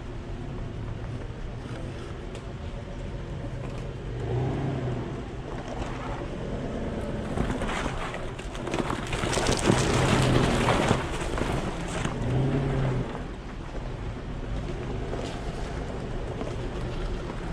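Off-road vehicle's engine running under load, revving up in surges about four seconds in and again for a couple of seconds near the middle, with a rushing noise during the louder stretch.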